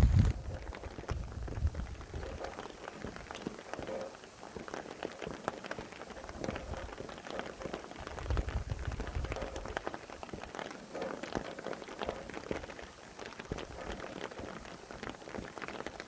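Rain falling steadily, with many separate drops tapping on a surface. Low gusts of wind swell in about eight seconds in and again at the end.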